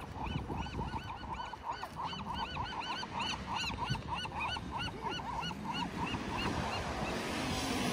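A flock of waterbirds calling, many short calls in quick overlapping succession, several a second, thinning out about six seconds in.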